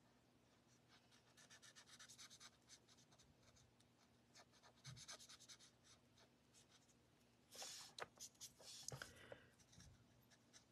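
Faint scratching of a marker tip stroking over paper while an image is colored in, with a denser run of strokes about eight seconds in.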